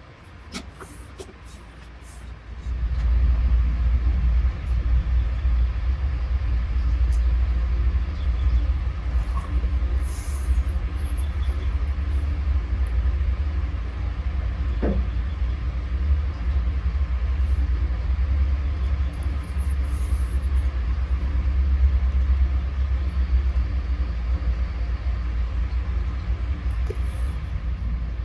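Small air compressor for an airbrush switching on about three seconds in and running with a steady low rumble, with a few short airbrush hisses over it.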